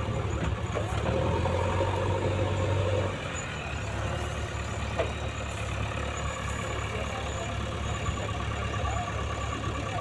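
Heavy diesel engines of a JCB backhoe loader and a mired tipper truck running steadily. The engine note is louder for the first three seconds, then drops back to a lower, rougher level, with a single sharp click about five seconds in.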